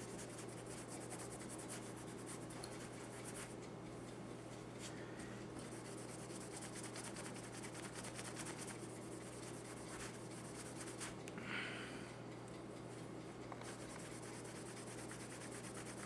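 Cloth rubbing polishing cream off a steel pistol barrel: a faint, continuous scratchy scrubbing with a few brief lulls and one slightly louder scrape a little past the middle.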